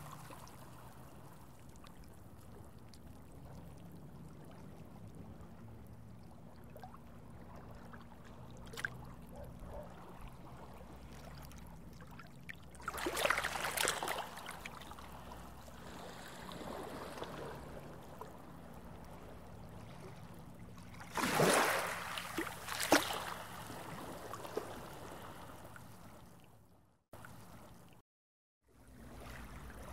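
Underwater water ambience: a steady low hum under gurgling water, with two louder rushes of bubbling water about 13 and 21 seconds in. The sound cuts out for about a second near the end.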